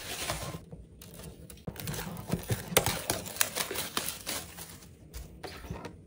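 Bubble wrap and plastic packaging rustling and crinkling as a DVD box set is pulled out of a cardboard box and unwrapped, with irregular light clicks and knocks of the box being handled.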